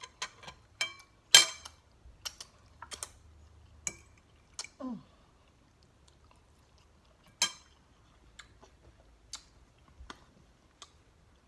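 Close-up mouth sounds of someone eating a pork neck bone: irregular wet smacks and clicks of lips and tongue as the meat is chewed and sucked off the bone, with a brief hum about five seconds in.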